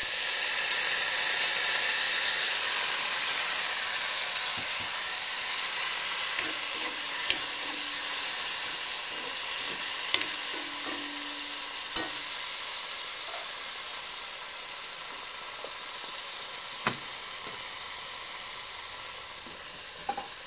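Dried small fish and onions frying in a black wok, flaring into a loud sizzle as a little water is poured into the hot oil, then slowly dying down. Four sharp clicks of the metal spoon against the pan come through the sizzle.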